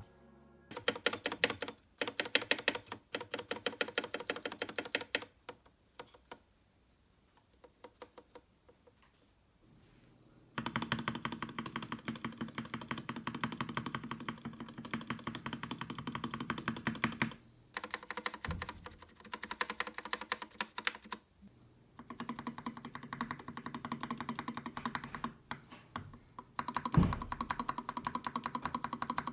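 Typing on an Everglide SK87 mechanical keyboard with Gateron Milky Yellow switches and PBT XDA keycaps: fast runs of keystrokes in bursts, with a sparser, quieter stretch about a third of the way in. It is a sound test comparing keys on lubed and unlubed stabilizers.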